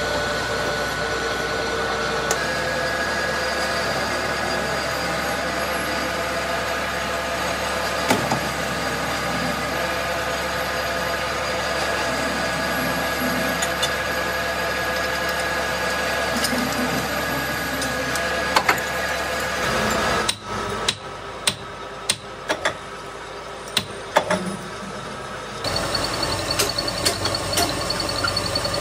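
Machine-shop machinery running with a steady hum, with a few sharp metal clanks. A little past two-thirds in, the hum drops away to a quieter stretch of sharp metal knocks and clanks, then a metal-turning lathe's running hum comes back near the end.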